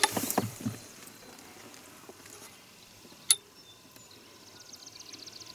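Landing net and hand-held fish scale being handled as a trout in the net is weighed: clicks and rustling in the first second, then one sharp click about three seconds in. Near the end comes a faint, rapid, high trill.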